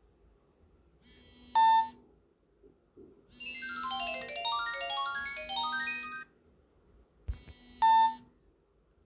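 Nokia 3310 mobile phone sounding its tones. A short loud beep comes about one and a half seconds in, then about three seconds of quick runs of stepped electronic notes. Near the end there is a soft knock and a second short loud beep.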